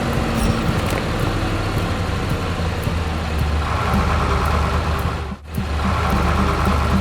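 Heavy truck engine running steadily, with a brief sudden dropout about five seconds in.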